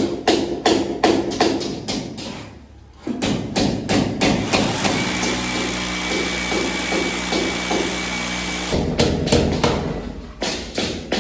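Hammer blows in quick succession, about three a second, fixing metal wall-angle trim to a concrete wall. In the middle the blows stop for about six seconds, and a steady continuous sound runs instead.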